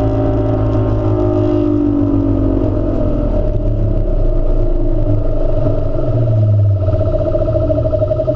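Bass boat's outboard motor running at speed, with the rush of wind and water around the hull. The engine's pitch eases down over the first few seconds, then holds steady.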